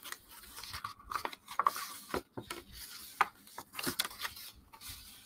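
Soft rubbing and rustling handling noises close to the microphone, with several sharp clicks.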